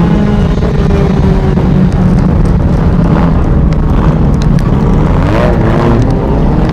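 Race car engine running steadily, its pitch wavering slightly, with scattered knocks and rattles.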